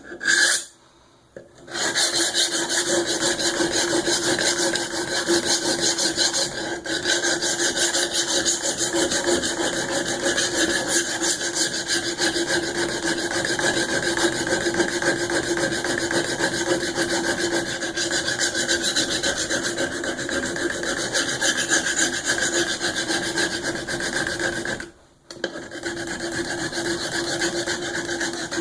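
A steel knife blade being stroked steadily and rapidly across the abrasive plate of a Work Sharp Guided Sharpening System, giving a continuous rasping scrape. The blade is being ground to raise a burr along the edge. The scraping stops briefly about 25 seconds in, then resumes.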